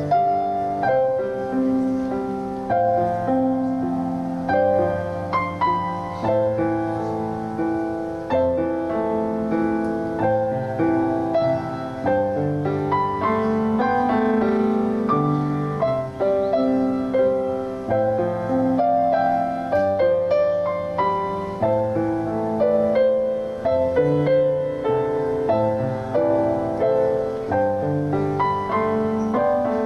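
Slow, gentle piano music: sustained chords with notes struck one after another.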